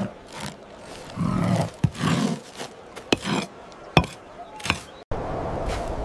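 Stones being worked and set: several sharp knocks and low scraping and rasping sounds. About five seconds in, the sound cuts abruptly to a steady low rumble.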